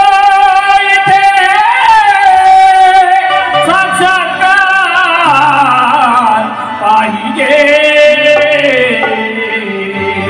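Marathi Bhim geet music: a long, held melodic line that slides up and down in pitch, with singing over the accompaniment, a little softer near the end.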